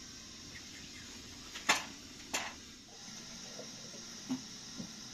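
Two sharp clicks about two-thirds of a second apart over a steady faint hiss, followed by a few faint short knocks.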